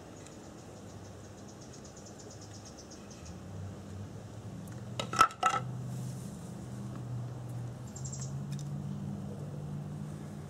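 Three sharp knocks of bamboo struck against stone in quick succession about five seconds in, tapping the ember loose from the bamboo fire saw into the tinder.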